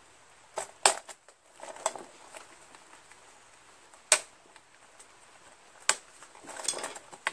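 Flathead screwdrivers prying a worn rubber tire off a plastic lawn mower wheel rim: about five sharp snaps and clicks spread over several seconds, with a brief scraping near the end.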